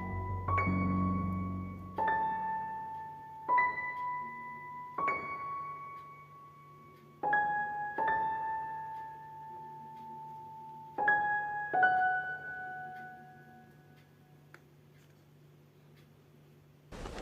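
Background music: a slow piano melody of single struck notes, each ringing out and dying away, over a faint low sustained tone. It fades out toward the end.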